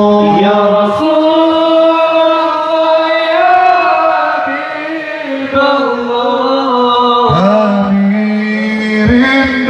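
Amplified male voices chanting a sholawat: a devotional melody sung in long held notes that bend in pitch, with short breaks between phrases.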